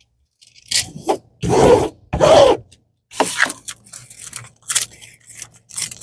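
Plastic packaging of a diamond painting kit crinkling and scraping as it is handled and opened, in a series of short bursts, the two loudest about a second and a half and two seconds in.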